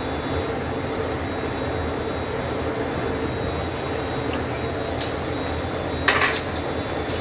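Steady roar of a hand-held gas torch flame heating a gather of Bullseye sheet glass on a blowpipe, over a constant low hum. From about five seconds in come a few light ticks, and a short louder rasp comes about six seconds in.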